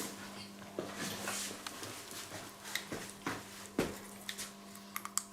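Scattered light knocks and clicks of kitchen utensils against a pan and container as coconut oil is spooned into the pan, over a steady low hum.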